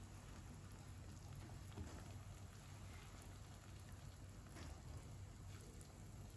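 Faint, steady rain, with a few scattered drops ticking.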